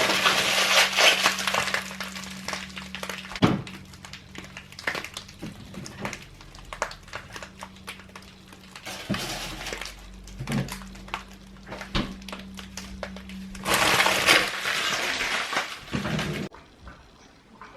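Handling noises: rustling at the start and again near the end, with scattered knocks and clicks in between, over a steady low hum. The sound cuts off suddenly shortly before the end.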